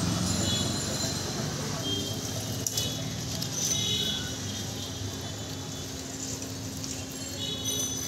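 Busy street background: a steady traffic hum with distant voices, a few short high tones here and there, and a small click about two and a half seconds in.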